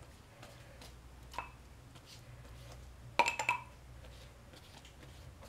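A faint click about a second in, then a quick cluster of sharp clinks about three seconds in as a pastry brush taps against the dish of egg white, over a faint steady hum.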